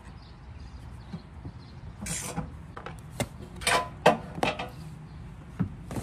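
Sharp clicks and knocks of hand work on a fog light and its mount under a car's front bumper, with a screwdriver being handled, over a low steady hum. There is a short scraping rush about two seconds in, and the loudest click comes about four seconds in.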